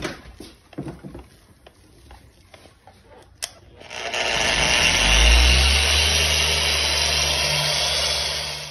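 Handheld dual-action polisher switched on about halfway through, spinning up within a second and then running steadily with its foam pad buffing a golf cart windshield. Before it starts there are only a few light handling clicks.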